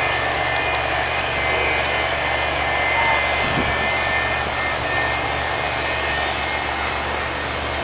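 McDonnell Douglas MD-88 jet airliner with rear-mounted Pratt & Whitney JT8D turbofans running on the runway: a steady rumble with a high, even whine over it.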